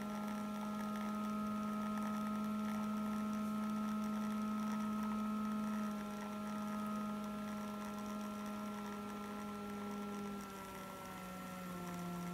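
La Marzocco Strada EP espresso machine's pump humming steadily during a shot, a steady pitched drone with overtones. Its pitch drops about ten seconds in and again near the end as brew pressure is lowered in manual mode, from about 8 bar toward 6.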